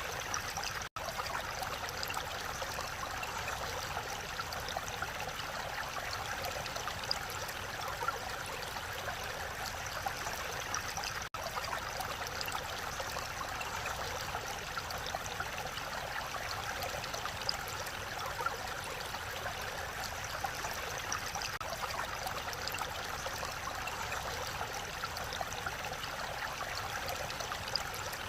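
Mountain valley stream rushing over rocks, a steady even rush of water broken by two momentary dropouts, one near the start and one about eleven seconds in.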